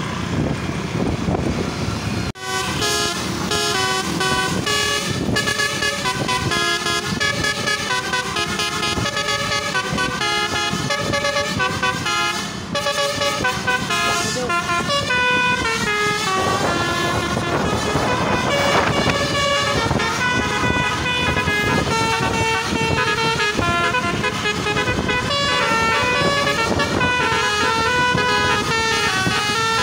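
Basuri telolet bus horn playing a tune of quick stepped notes, several tones sounding at once, starting abruptly about two seconds in.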